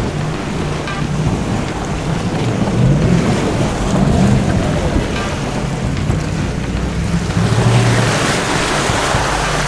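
Four-wheel-drive SUV fording a fast river: water rushing and splashing against the body, heard from inside the cab, with the engine working under load and its pitch rising and falling.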